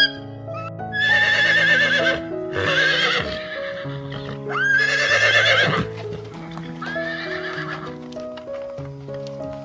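Horse whinnying about four times, each a wavering, quavering call lasting around a second, over background music.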